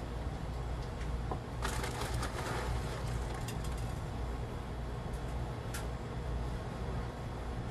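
Hands handling succulent cuttings and potting soil: a short crackling rustle about two seconds in, then a few light clicks, over a steady low hum.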